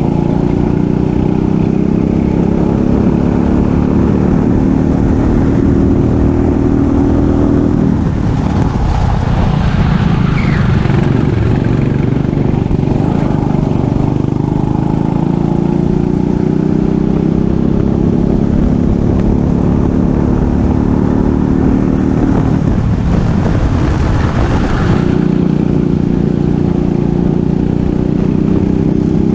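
Racing kart engine running at full throttle, its revs climbing slowly along the straights and dropping twice for corners before climbing again.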